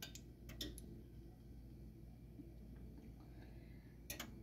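Near silence: a faint steady low hum, with a few faint clicks in the first second and again near the end.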